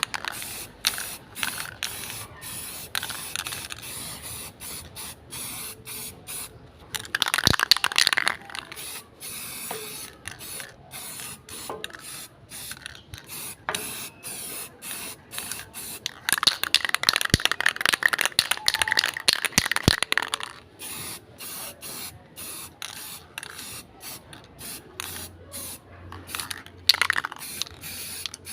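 Rapid back-and-forth scrubbing or scraping, about three strokes a second, during cleaning of a stock pot burner; it is louder for a stretch around eight seconds in and again from about sixteen to twenty seconds.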